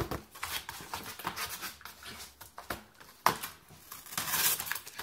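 A puppy scrambling across a wood-laminate floor, its claws clicking and scuffing in quick irregular taps, mixed with rubbing and knocks from a handheld phone; one sharp knock stands out about three seconds in.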